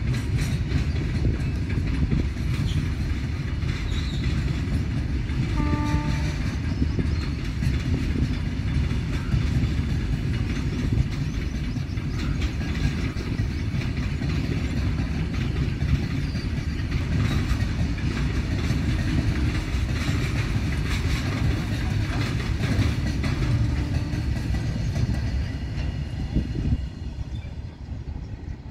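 Freight train of covered goods wagons rolling past: a steady rumble with the clickety-clack of wheels over rail joints. A brief train horn note sounds about six seconds in, and the noise drops shortly before the end as the last wagons near.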